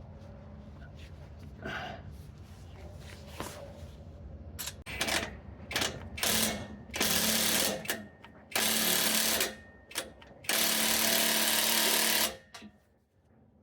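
Cordless impact wrench tightening the bolt on an exhaust pipe clamp. It runs in a few short bursts and then three longer bursts of a second or more each.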